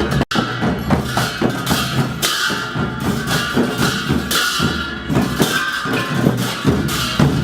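Newar dhime drums beaten in a fast, driving rhythm, with hand cymbals clashing along: live Dhime dance music.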